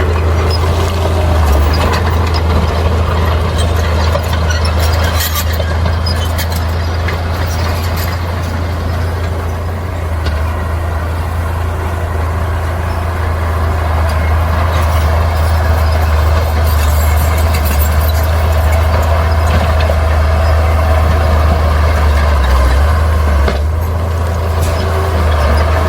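Bulldozer's diesel engine running steadily under load with a strong low drone, with scattered knocks from the machine working over rock.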